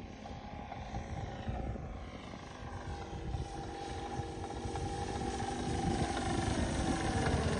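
Fliegerland Sportsman RC model plane's 3W-157 two-stroke petrol engine running in flight, with a steady engine tone that grows louder as the plane comes closer.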